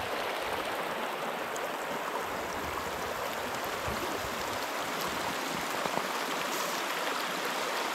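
Small stream running: a steady, even sound of flowing water.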